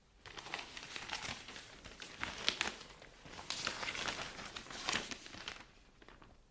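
Newspaper pages rustling and crackling as the paper is opened and leafed through, for about five seconds, dying away shortly before the end.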